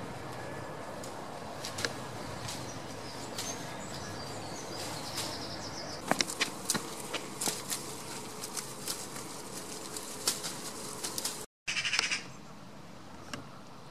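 Steady motor hum in the background, with many sharp irregular clicks and taps from about six seconds in: goat hooves on paving stones. The sound drops out briefly near the end, and the surroundings are quieter after it.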